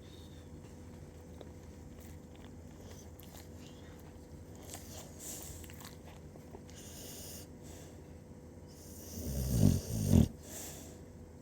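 Snoring: several seconds of faint, quiet breathing, then one loud snore in two quick surges near the end.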